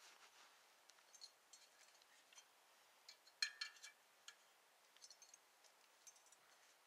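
Faint, scattered clicks and clinks of metal camping kit being handled, the loudest a brief ringing clink about three and a half seconds in.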